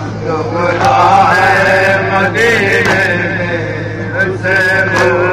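Men chanting a Shia nauha lament, a slow sung recitation in drawn-out phrases, over a steady low hum, with a few short sharp hits near the middle and end.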